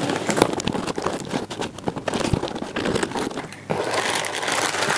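Cardboard parcel being opened: flaps pulled back and packing paper rustling and crinkling under the hands, with many small scrapes and clicks.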